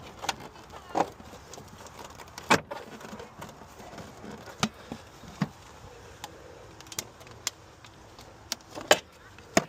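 Scattered sharp clicks and knocks of hand tools and engine parts being handled, about a dozen over several seconds, the loudest three near the middle and at the end.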